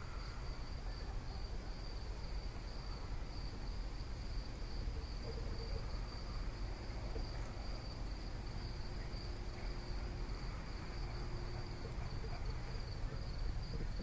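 Crickets trilling in one steady, high-pitched band, over a constant low rumble.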